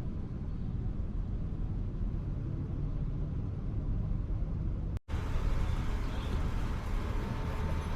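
Steady low ambient rumble with no distinct events. It drops out abruptly about five seconds in, then carries on slightly louder and brighter.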